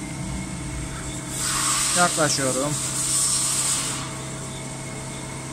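CNC lathe running with its spindle and chuck turning clockwise at 1000 rpm, a steady machine hum. About a second and a half in, a rushing hiss rises over it and dies away after a couple of seconds.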